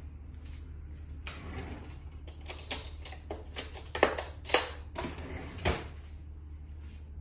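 A run of sharp clicks, clinks and scrapes from kitchen utensils and a spice jar being handled, the loudest about two and a half, four, and five and a half seconds in, over a steady low hum.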